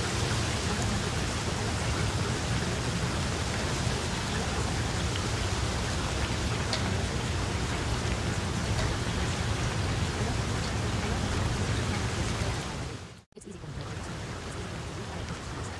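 Recorded rain: a steady hiss of rainfall over a low rumble. About thirteen seconds in it fades out to a moment of silence, then starts again, quieter.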